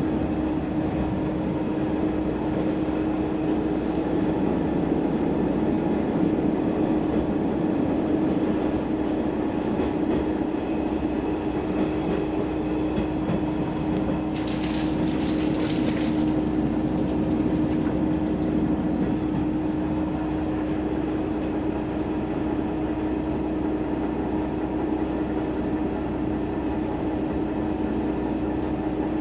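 Diesel railcar running, heard from inside the cabin: a steady drone with a constant low hum and the rumble of the wheels on the rails. A short higher-pitched hiss comes in about halfway through.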